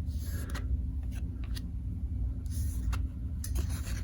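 Trading cards being handled and flipped through by hand: a few light ticks and short rustles over a steady low hum.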